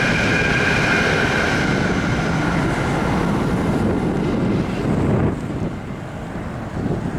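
Locomotive air horn sounding a held chord that fades out about two to three seconds in, over the low rumble of the passing train, with wind buffeting the microphone.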